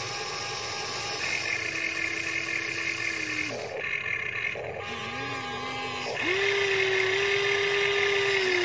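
Huina 1593 RC excavator's small electric motors whining as the arm and bucket dig soil. The whine runs in stretches of a few seconds at a steady pitch, drops out briefly between moves, and comes back higher and louder for the last two and a half seconds.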